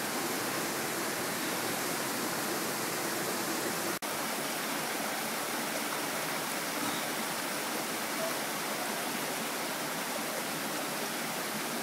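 Rushing water of a steep mountain stream running high with winter rain and snowmelt, tumbling over small waterfalls in a steady roar. The sound drops out for an instant about four seconds in.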